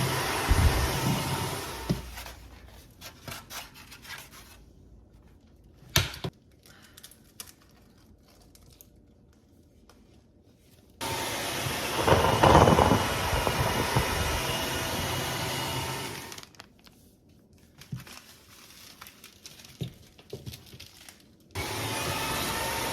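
Cordless wet-dry vacuum mop running, heard in three stretches: it cuts out about two seconds in, comes back about eleven seconds in, louder for a moment a second later, cuts out again about sixteen seconds in and comes back near the end. In the quiet gaps there are scattered clicks and knocks, with one sharp click about six seconds in.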